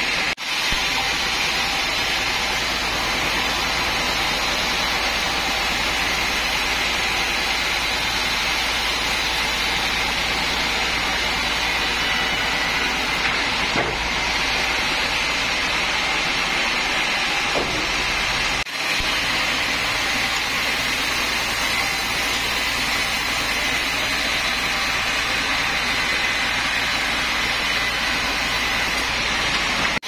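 Sawmill band saw running steadily while it cuts lengthwise through a mahogany log fed on a rail carriage, a continuous loud sawing noise.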